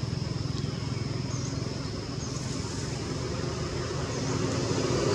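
A steady low engine hum with a fast, even pulse, and a few faint high chirps over it.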